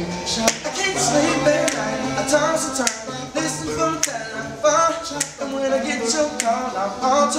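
Men's vocal group singing in close harmony with no instruments, a low bass voice repeating short bass notes under the others. Sharp snaps recur on the beat, roughly every half second.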